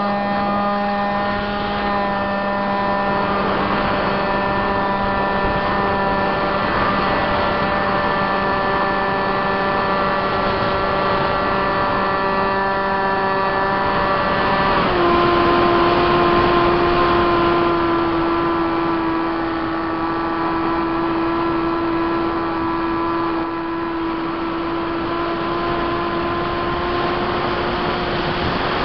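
Multiplex Easy Star's Permax 400 brushed electric motor and propeller whining steadily under power, heard from a camera mounted on the plane, with wind rushing over the microphone. About fifteen seconds in, the whine steps down to a lower pitch and runs on steadily.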